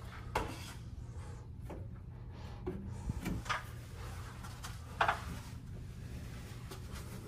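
Scattered knocks, clicks and rubbing from hands and parts being handled against a refrigerator cabinet and its mounting bracket, the sharpest knock about five seconds in, over a steady low hum.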